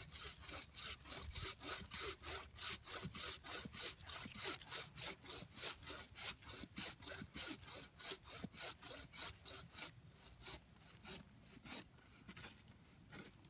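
Hand saw cutting through the trunk of a freshly felled-to-be Christmas tree: quick, even back-and-forth rasping strokes about three a second, growing fainter and more irregular about ten seconds in.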